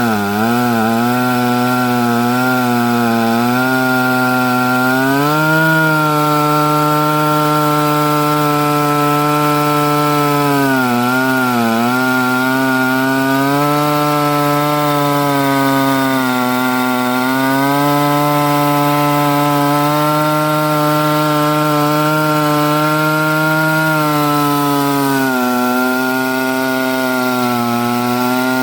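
Two-stroke chainsaw on an Alaskan chainsaw mill, running at high revs as its chain cuts lengthwise through a log. The engine pitch wavers in the first few seconds and sags briefly about eleven seconds in as the saw loads up in the cut, then recovers.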